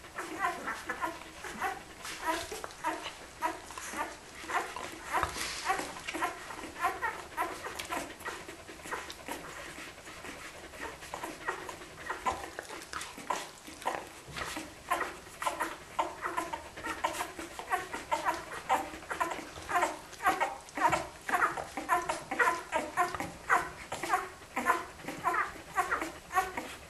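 Week-old Australian Kelpie puppies squeaking and whimpering in many short, high calls while they nurse, over the mother's rhythmic panting, about three breaths a second, which grows louder in the second half.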